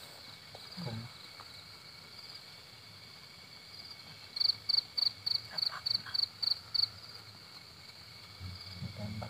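Crickets chirping in short trilled chirps, with a run of about nine loud chirps, some three a second, a few seconds in. A faint steady high tone sits behind them.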